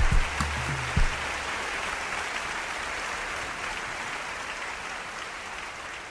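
Applause-like clapping, with the last bass beats of outro music ending about a second in; the clapping then fades out slowly.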